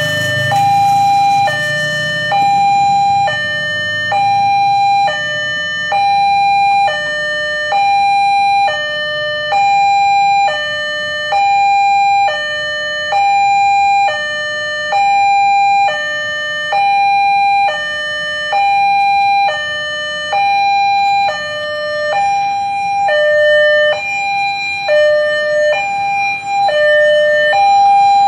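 Railway level-crossing warning alarm sounding as the crossing closes for an approaching train: a two-tone high-low signal, each tone held a little under a second, repeating evenly.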